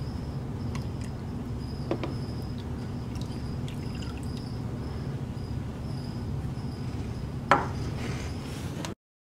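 Fragrance oil being poured and whisked into cold-process soap batter in a glass bowl, with a few faint clicks over a steady low room hum. There is one sharp clink about seven and a half seconds in, and the sound cuts off just before the end.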